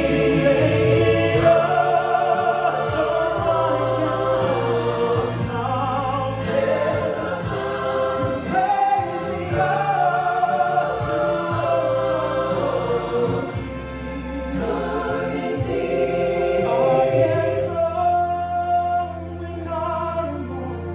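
Live music: voices singing held, choir-like notes with vibrato over sustained low string notes.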